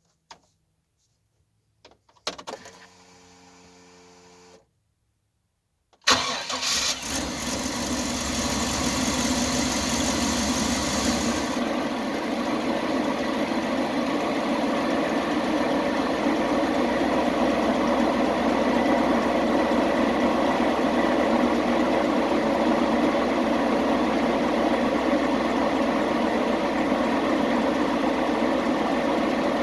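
Chevy Express 3500 van's engine starting about six seconds in, after a few clicks and a faint steady hum. It runs at a fast idle, then settles to a steady idle about five seconds later, running evenly with its misfire fixed.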